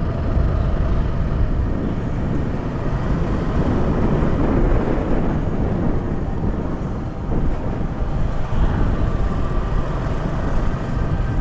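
Motorcycle running steadily at riding speed, with heavy wind rumble on the microphone.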